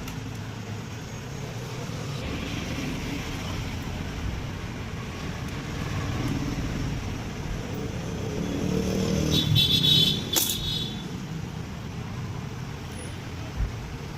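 Road traffic running steadily. A vehicle passes close and is loudest about nine to ten seconds in, with a brief high-pitched sound as it goes by, followed by a sharp click.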